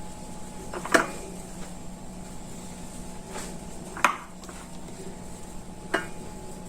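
Three short knocks of dishes or utensils set down on a kitchen counter during food preparation, about three seconds apart, over a steady low appliance hum.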